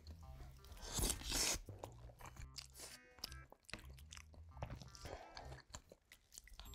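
Close-miked eating of braised spicy chicken stew with rice: chewing and mouth sounds, with a loud crunchy mouthful about a second in.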